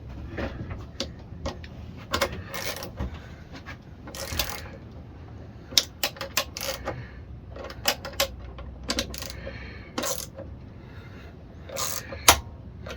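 Hand ratchet and socket clicking in irregular short bursts, with sharp metallic clinks of tools against the engine, as the ignition coil bolts on a Mountfield RV150 engine are tightened down.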